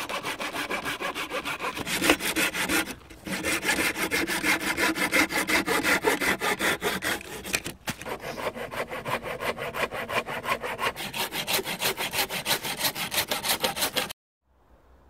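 Hand saw cutting through dead-wood sticks in rapid, even back-and-forth strokes, several a second, as the stick ends are trimmed off; the sawing pauses briefly twice and stops suddenly near the end.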